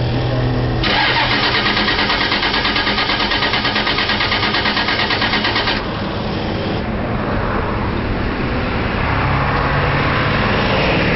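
Cold engine being cranked over by its starter, with a fast, even pulse of about four beats a second for about five seconds, then the cranking stops. It does not catch: the engine won't fire in the cold. A steadier, quieter hum carries on afterwards.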